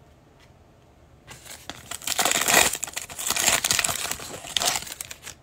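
A Prizm football card pack's foil wrapper being torn open by hand and crinkling. It starts about a second in and lasts about four seconds.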